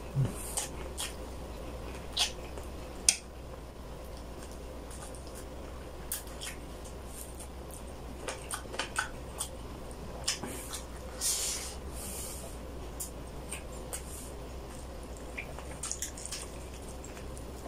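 Close-miked mukbang eating sounds: wet chewing and lip smacking on braised chicken, with scattered sharp mouth clicks, the loudest about three seconds in. Near the end, hands pull at the sauce-glazed whole chicken.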